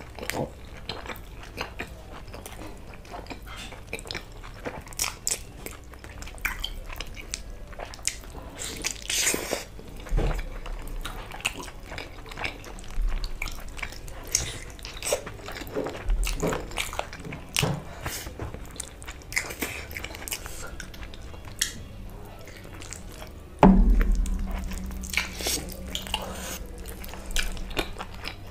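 Close-miked eating of meat curry and flatbread by hand: biting and chewing with many small sharp clicks from the mouth, and one louder thump about three-quarters of the way through.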